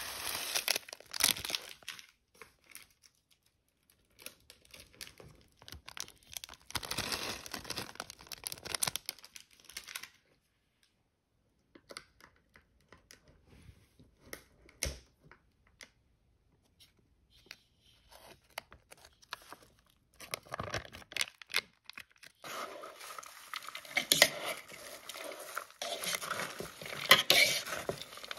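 Plastic topping packets from a salad kit tearing and crinkling as seeds and dried toppings are poured onto shredded cabbage and kale, in bursts with pauses. In the last several seconds comes louder, continuous rustling as the salad is tossed in the bowl with plastic servers.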